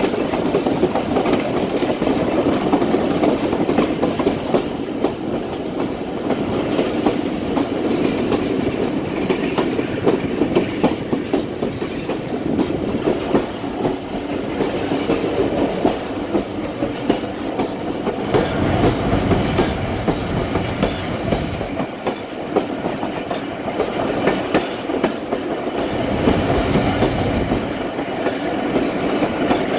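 Passenger train coach running on the track, its wheels clicking over the rail joints, heard from the open coach doorway. A deeper rumble swells twice in the second half.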